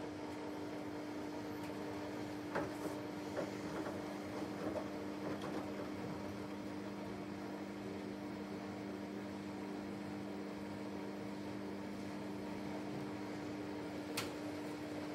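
Samsung WW90 front-loading washing machine spinning on its pre-wash spin, a steady motor and drum hum held at constant speed. There are a few light knocks in the first few seconds and a single sharp tap near the end.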